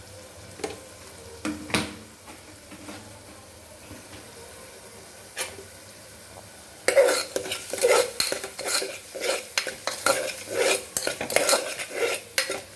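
A metal spoon stirring frying onion-tomato masala with red chilli powder in a pressure cooker pot. At first a faint sizzle with a few separate clinks, then from about seven seconds in quick, loud scraping and clinking strokes against the pot.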